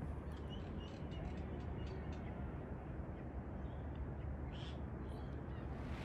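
Faint outdoor ambience: a steady low wind rumble on the microphone, with scattered small ticks and a few brief, distant bird chirps.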